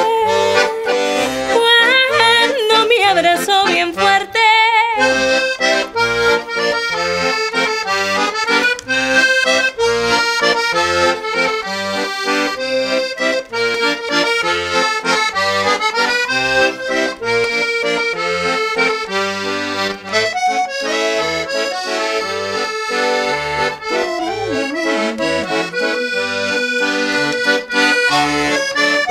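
Piano accordion playing an instrumental passage: a melody on the right-hand keyboard over bass notes and chords from the left-hand buttons in a steady rhythm.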